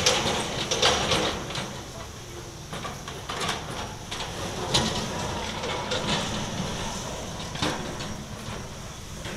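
Hitachi demolition excavator breaking up a concrete building: irregular crunches, scrapes and sharp knocks of concrete and metal debris over the steady low sound of its engine running, loudest near the start and about a second in.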